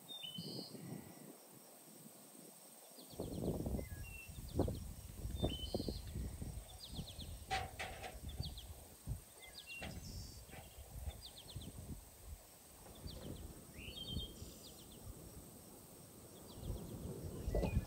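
Small birds singing: short rapid trills and chirps repeated every second or two, over intermittent low rustling and knocks of handling.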